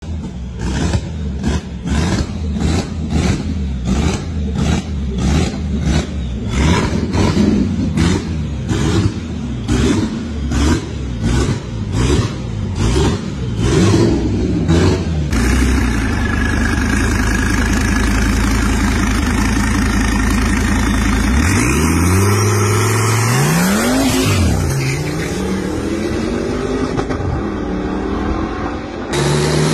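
Audi RS6 C6's twin-turbo V10 revved over and over, its exhaust popping and spitting flames at about two bursts a second. About halfway through this gives way to a steady engine sound and a car accelerating hard, its engine pitch rising and falling twice.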